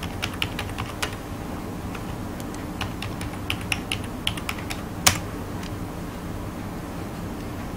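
Computer keyboard keystrokes as a mobile number and password are typed, in irregular quick runs. One louder click comes about five seconds in, submitting the login. After that the typing stops.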